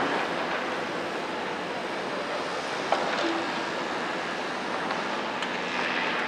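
Steady wash of noise from excavators working a demolition site heard from afar, with no clear engine note, and a single sharp clank about three seconds in.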